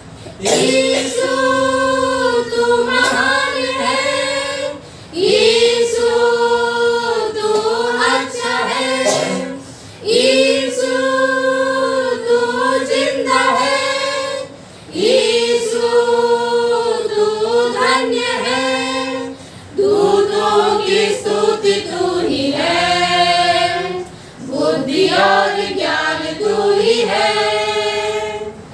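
A small women's choir singing a church hymn together, unaccompanied. It moves in phrases of about five seconds, with a brief breath between each.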